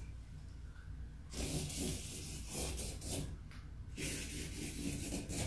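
Felt-tip marker drawing on a paper sheet: quick scratchy strokes in two runs, starting about a second in, with a short pause between them.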